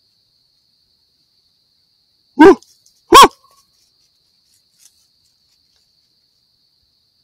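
Two loud, short barks about three-quarters of a second apart, each rising and then falling in pitch, over a faint steady high trill of crickets.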